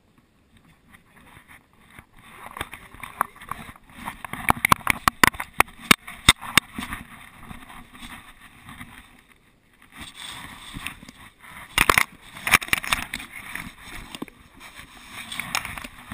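Rustling and scraping of a GoPro camera worn by a dog as the dog moves about, with sharp clicks and knocks against the housing. It starts after a couple of seconds of quiet, is busiest about four to seven seconds in and again around twelve seconds, and eases off briefly in between.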